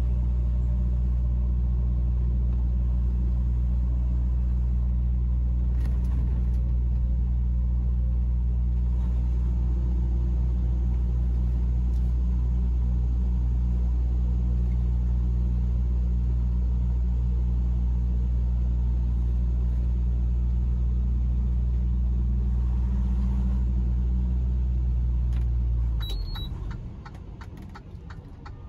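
Semi-truck engine heard from inside the cab, a loud, steady low drone under way on the road. About three seconds before the end it suddenly drops much quieter as the throttle comes off, and a few sharp clicks follow.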